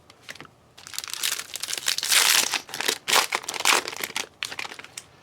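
A trading card pack wrapper being torn open and crinkled by hand: a run of dense crackling and rustling that starts about a second in and stops shortly before the end.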